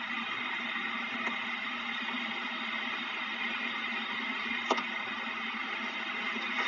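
Steady background hiss and faint hum from a phone livestream's microphone, with a faint click about a second in and a sharper click about two-thirds of the way through.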